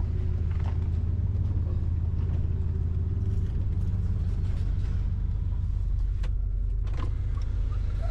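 Vehicle driving, a steady low engine and road rumble heard from inside the cab, with a couple of faint clicks near the end.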